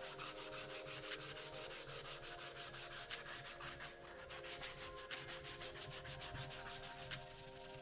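Sheet of sandpaper rubbed by hand over a small piece of wood in quick back-and-forth strokes, several a second, stopping shortly before the end.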